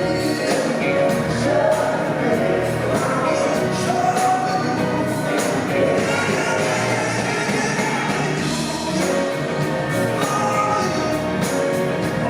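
Live rock band playing, with singing and a steady drum beat, in a large hall.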